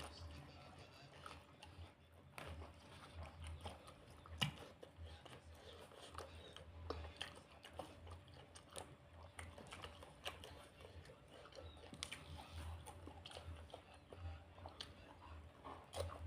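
Faint, close-up chewing and biting of food: many small wet clicks and crunches at an irregular pace, with one sharper crunch about four and a half seconds in.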